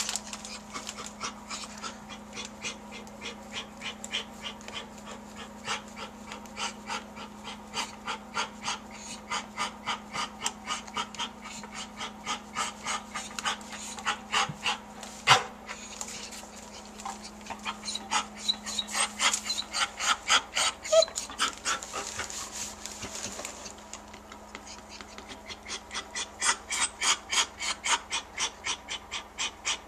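German Shepherd bitch panting in labour, quick rhythmic breaths about three a second, coming in louder stretches.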